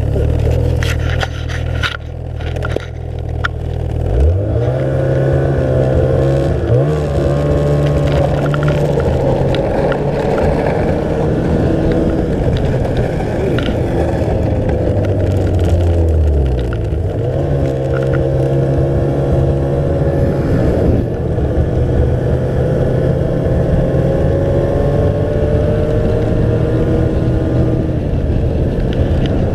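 Ski-Doo REV 550 snowmobile's two-stroke engine, running slowly at first with scraping and clatter from the sled, then revving up and pulling away about four seconds in. It holds a steady cruise, eases off and drops in pitch around sixteen seconds, then accelerates again and runs on at speed.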